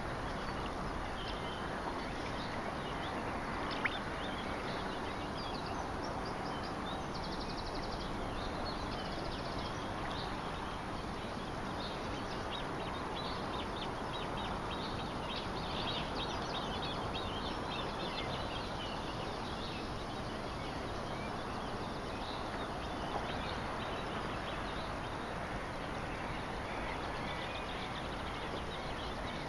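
Outdoor dawn ambience: birds chirping and calling over a steady rush of background noise, the chirping busiest through the middle. A single sharp click about four seconds in.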